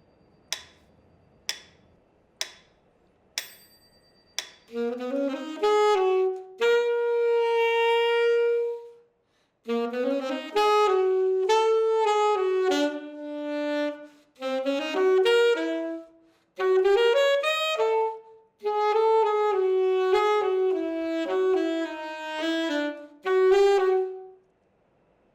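Four sharp clicks about a second apart, then an unaccompanied saxophone playing jazz phrases in several runs broken by short pauses, with one long held note early on.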